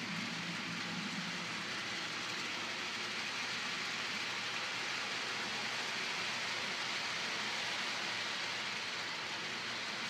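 HO-scale model freight train's wheels rolling along the track as the cars pass: a steady hiss and rumble.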